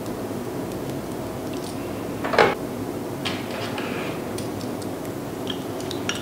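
Small objects handled on a tabletop: a few light clicks and taps over a steady background hiss, with one brief louder rustle about two and a half seconds in and a cluster of clicks near the end as a practice nail tip on its stand is set down.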